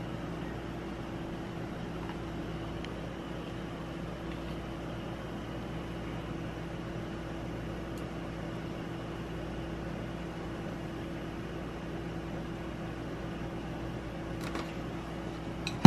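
An appliance motor running with a steady hum and a constant low drone. There are a couple of faint clicks near the end.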